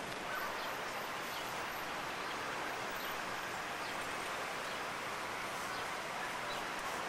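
Steady outdoor background noise: an even hiss with no distinct events standing out.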